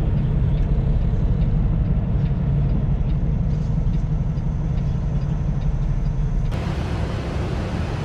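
Diesel engine drone and road noise heard inside a moving semi-truck's cab, steady throughout. About six and a half seconds in, the sound changes abruptly and a brighter hiss comes in.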